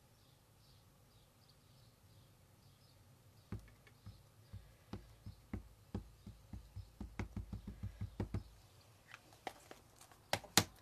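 A rubber stamp tapped repeatedly onto an ink pad to ink it: a run of soft taps about four a second for some five seconds, then a few sharper knocks near the end.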